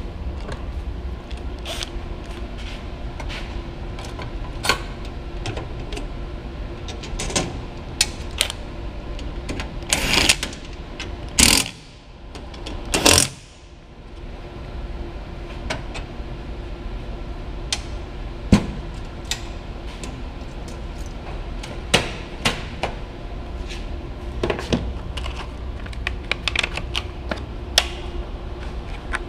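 Hand work at a steel motor control center cabinet: scattered clicks and knocks of tools, sheet-metal doors and parts being handled, with a few louder rustling bursts about ten to thirteen seconds in, over a steady background hum.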